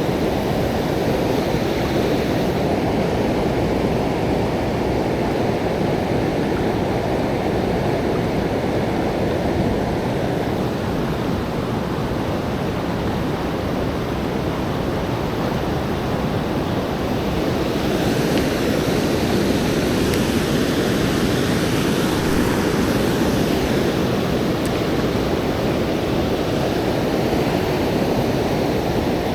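Fast, swollen river water rushing steadily, an even noise with no breaks, growing a little louder about two-thirds of the way through.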